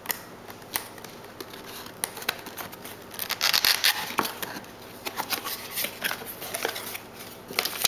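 Cardboard box being opened by hand: scattered clicks and scrapes as the lid tab and flaps are worked loose, with a louder stretch of scraping and rustling about three seconds in.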